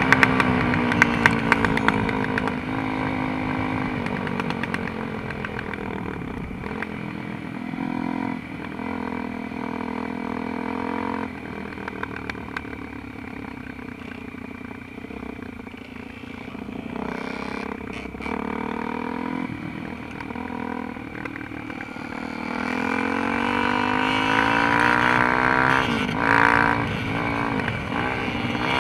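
Suzuki RM-Z250 four-stroke single-cylinder dirt bike engine running under a rider's throttle, its pitch rising and falling. It settles to a lower, quieter note through the middle and revs up louder near the end.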